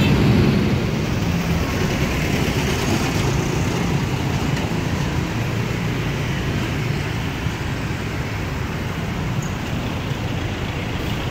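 Steady low rumble of road traffic, a little louder in the first second and then even.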